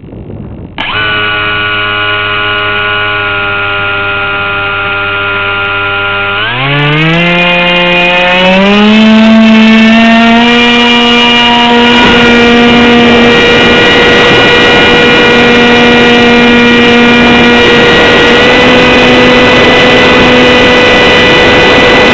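Electric motor and propeller of a Z84 flying wing whining: a low steady whine at low throttle, then about six seconds in it steps up in pitch over a couple of seconds to a loud steady high-throttle whine.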